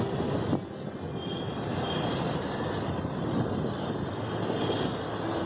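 Wind blowing across the microphone, a steady rushing rumble. About half a second in, the level drops suddenly as a steady tone cuts off.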